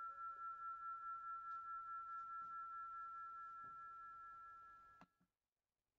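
A steady high ringing tone, two close pitches that pulse slightly against each other, slowly fading and then cutting off abruptly into dead silence about five seconds in. The sudden dropout comes as the stream's audio is being fixed.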